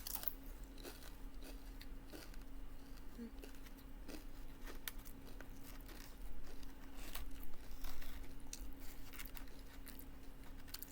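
Close-up chewing and crunching of tortilla chips with taco salad, irregular small crunches and clicks of the mouth eating.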